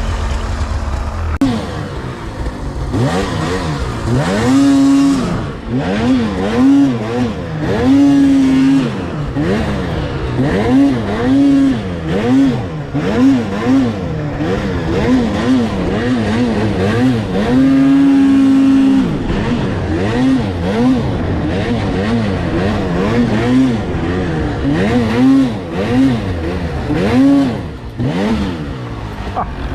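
Snowmobile engine revved up and down over and over, its pitch rising and falling about once a second, with a few short stretches held at high revs, as the sled is worked through steep terrain.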